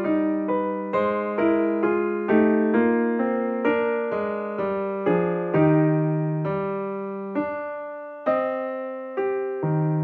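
Slow solo piano music: notes and chords struck one after another, each ringing and fading before the next.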